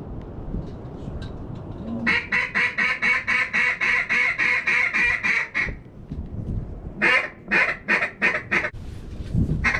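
Duck quacking, starting about two seconds in: a fast, even run of quacks lasting about three and a half seconds, then a slower string of about five louder quacks, and more starting near the end. Steady wind rumble runs underneath.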